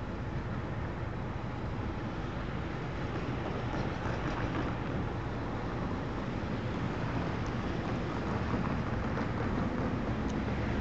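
Steady low rumble of distant diesel freight locomotives running, mixed with wind on the microphone; it grows slightly louder toward the end.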